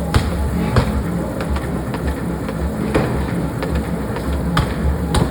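Forging-shop noise: a steady low machine rumble with sharp metal strikes at irregular intervals, the loudest about a second in and near the end.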